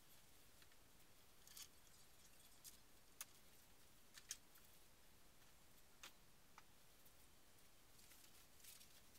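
Near silence: room tone with a few faint, short clicks and rustles scattered through it, the sharpest about three and four seconds in.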